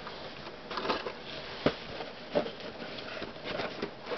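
Cardboard model kit boxes being lifted and shuffled against each other inside a shipping carton: scattered light knocks and rustling.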